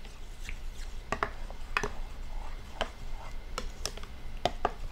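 A spoon stirring yogurt and mayonnaise in a glass mixing bowl, clinking against the glass in a series of irregular clicks.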